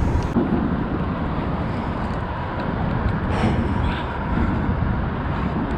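Steady low rumble of traffic crossing the bridge overhead, with wind on the microphone.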